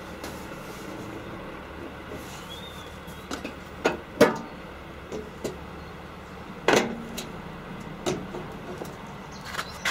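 A few separate sharp knocks and clicks as a car's front wing is worked loose from the body by hand, the loudest about four seconds in and another near seven seconds.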